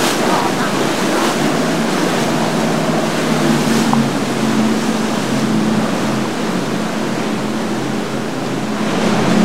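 Surf and rushing water with the steady low drone of boat engines underneath.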